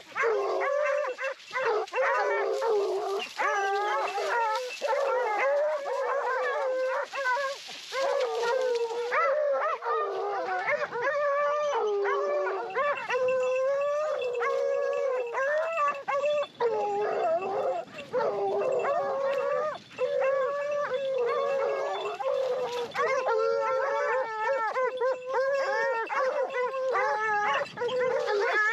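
A pack of Porcelaine hounds baying, many voices overlapping without a break: the pack in full cry, running a wild boar's trail.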